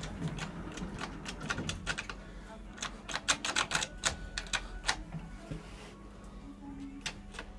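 Thyssen hydraulic lift car travelling: a steady low hum with runs of sharp, irregular clicks and ticks.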